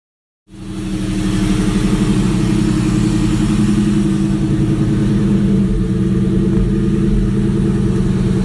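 2004 Ford Mustang GT's 4.6-litre V8 running steadily with a pulsing exhaust note, starting abruptly about half a second in.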